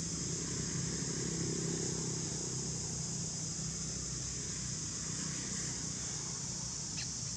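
Steady outdoor background: an even high-pitched hiss over a low steady hum, with a faint tick near the end.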